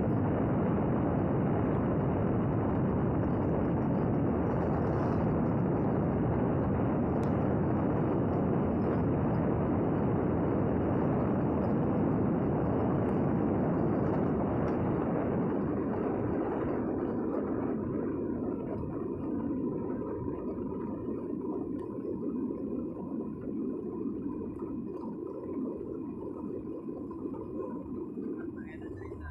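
Riding noise on a moving motorbike: wind rushing over the microphone mixed with engine and road noise, steady at first and quietening from about halfway through, when a faint steady hum comes through.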